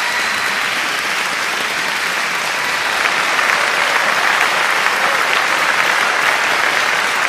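Applause: a crowd clapping steadily, swelling a little about three seconds in.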